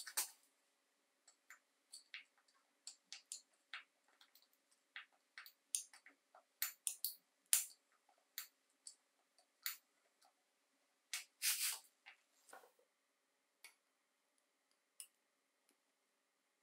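Irregular small, sharp clicks and taps of pliers and a pick tool working on the plastic parts of a chainsaw carburettor's primer bulb assembly while it is taken apart. They come thick and fast, bunch into a longer busy run about two thirds of the way through, and then thin out to a few isolated ticks.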